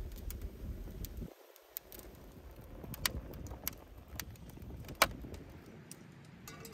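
Split firewood burning inside a clay dome oven, crackling with scattered sharp pops, the loudest about five seconds in.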